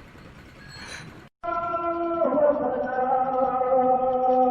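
Faint background noise, then after an abrupt cut about a second in, music begins: long held notes stacked in harmony, shifting to a new chord a second later.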